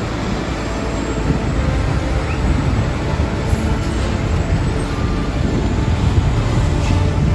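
Heavy diesel engines running with a steady low rumble.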